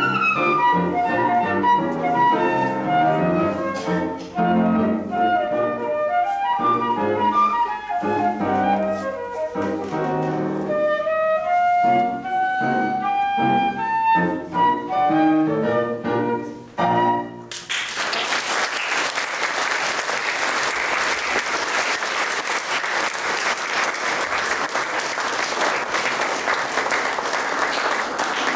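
Transverse flute and upright piano playing a piece together, ending about 17 seconds in. Audience applause follows.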